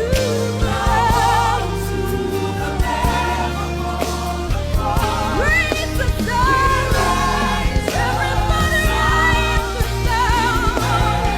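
Christian worship song: several voices singing held, wavering notes with vibrato over a band with sustained low bass notes.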